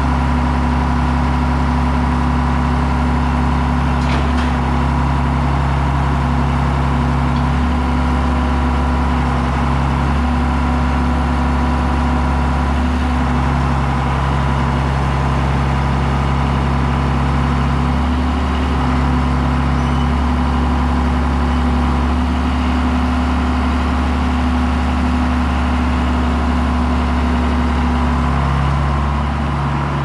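John Deere 7610 tractor's six-cylinder diesel engine running steadily, its note shifting slightly every few seconds.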